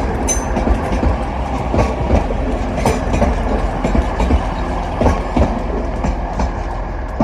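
Passenger train running past at close range: a steady low rumble with wheels clicking and clattering over rail joints and pointwork, easing off slightly near the end.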